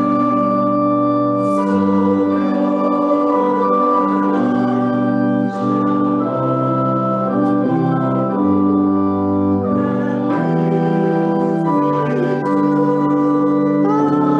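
Organ playing a slow hymn tune in held chords that change every second or so.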